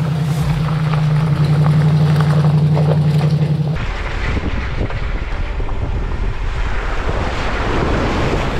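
A vehicle's engine drones steadily, then stops abruptly about four seconds in, giving way to a rushing wind noise that grows louder near the end.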